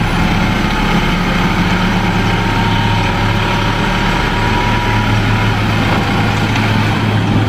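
Light dump truck's diesel engine running steadily while the hydraulic tipper raises the loaded bed and soil slides out. A faint thin high tone sits over the engine through the middle seconds.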